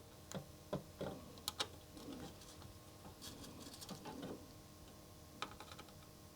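Faint, scattered small clicks and taps of hand soldering on a circuit board, as the iron and solder touch the socket pins. There are several sharp ticks in the first second and a half, softer rustling in the middle, and one more tick near the end.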